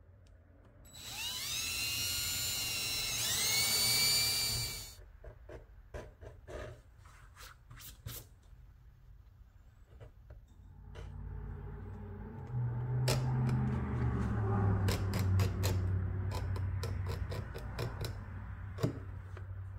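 Cordless drill running up to speed and boring rivet holes through stacked layers of leather into a wood backing block, its motor whine rising in pitch, for about four seconds. After it stops come scattered clicks, then a low hum with a run of sharp ticks and scraping in the second half.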